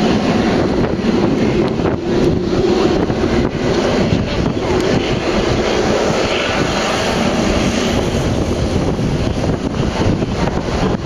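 Twin turbofan engines of a Hawker 400XP business jet at takeoff power during the takeoff roll, a steady rushing jet noise mixed with wind buffeting the microphone.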